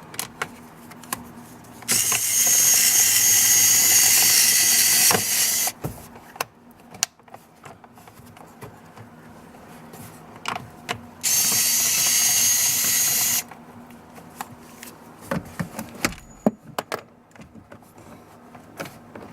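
Cordless drill/driver running in two steady bursts, the first about three and a half seconds, the second about two seconds, driving the cover screws back in. Small clicks and handling knocks fall between the bursts.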